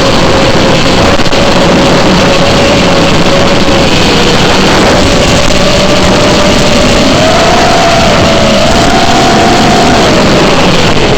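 FPV quadcopter's motors and propellers heard through its onboard camera: a loud, noisy whir with a motor tone that rises in steps about seven to nine seconds in and falls back near the end as the throttle changes, with wind rushing over the microphone.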